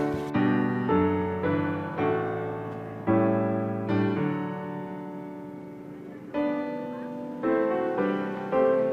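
Background piano music: notes and chords struck one after another, each ringing out and fading away, with a longer fading chord near the middle.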